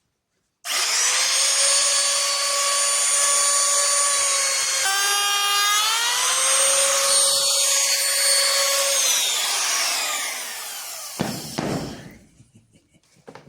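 Small handheld router with a dovetail bit switching on and running at a steady high whine; its pitch dips briefly about five seconds in and recovers, then it switches off and spins down. A short knock near the end.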